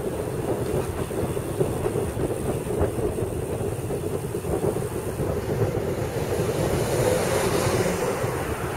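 Wind buffeting the microphone and road noise from a camera riding on a road bike rolling over asphalt: a steady rumble, with more hiss about seven to eight seconds in.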